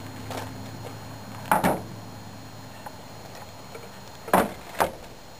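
Handling noise from the camera: a pair of sharp knocks and rattles, then two more near the end, as it is picked up and moved, over a low steady hum.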